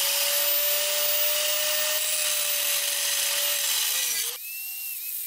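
Angle grinder cutting into a steel bolt head: a steady motor whine under a harsh hiss of grinding. About four seconds in it comes off the metal and the whine jumps higher as it runs free.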